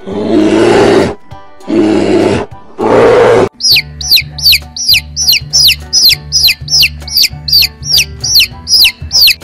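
A brown bear growls three times, each growl about a second long. Then a domestic chicken chick peeps over and over, about three peeps a second, each peep falling in pitch.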